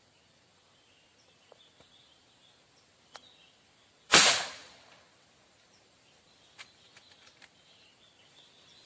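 A single sharp, loud shot from an unsuppressed gejluk air rifle about four seconds in, with a short ringing tail. Faint high chirps in the background.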